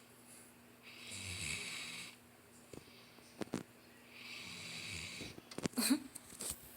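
Chocolate Labrador retriever snoring in deep sleep: two slow, raspy snore breaths about three seconds apart. A few faint clicks come midway, and a short, louder noise comes near the end.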